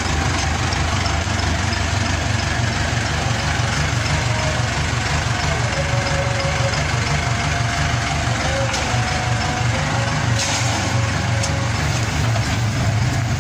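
Diesel engine of a backhoe loader running steadily, a continuous low drone.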